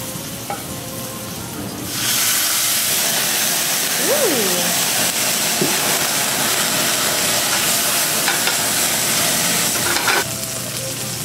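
Cognac sizzling in a hot sauté pan of eggplant, then flaring up in a flambé: about two seconds in, the sound jumps to a loud, steady rush of hiss and sizzle from the burning alcohol. The rush drops back suddenly near the end as the flames die down.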